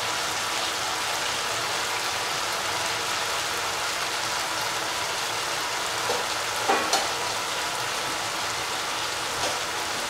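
Chopped chicken and cauliflower sizzling as they sauté in an open pan: a steady frying hiss. A few short clicks of the stirring spatula on the pan come about six and seven seconds in and again near the end.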